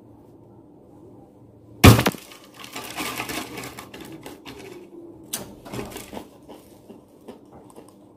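A sharp crack about two seconds in, then crisp potato chips crackling and rustling as they are handled on a paper plate.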